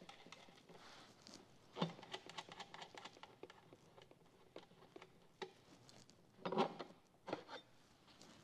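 Faint handling noises of thumb screws being unwound and an aluminium frame lifted off a motorcycle's plastic airbox: scattered light clicks, knocks and scrapes, the loudest about two seconds in and again about six and a half seconds in.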